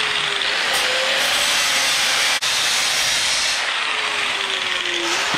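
Angle grinder with a cutoff wheel cutting through steel expanded-metal mesh: a steady hiss of cutting over the motor's whine, which sags in pitch as the wheel bites. The cutting breaks off for an instant about two and a half seconds in.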